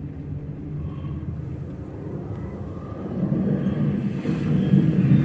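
Low rumble from a movie's soundtrack, swelling louder about three seconds in.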